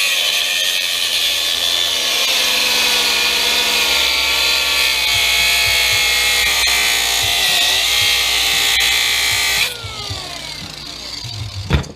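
Battery-powered grinder with a cutoff wheel cutting through metal: a high whine with a harsh cutting hiss, its pitch sagging slowly under load. About ten seconds in it is lifted off and winds down, and a sharp metal knock follows near the end.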